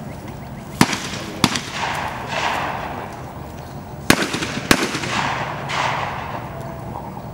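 Four 28-gauge shotgun shots on a skeet field, in two pairs: two shots about two-thirds of a second apart, then, about three seconds later, two more. Each pair is a skeet double, and each is followed by a trailing echo.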